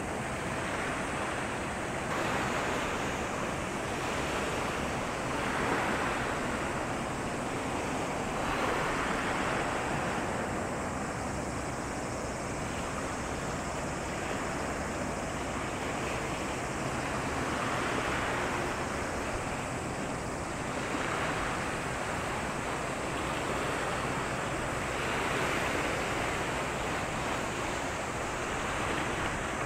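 Sea waves washing in, swelling and falling back every few seconds, over a faint steady low hum.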